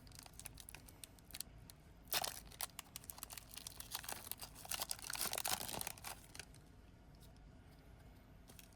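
Foil Pokémon booster pack wrapper being torn open and crinkled, in faint, short crackling bursts.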